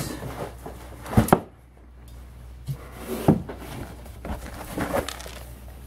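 Cardboard Priority Mail shipping box being picked up and handled on a table: a few dull knocks and scrapes, the loudest a quick pair about a second in.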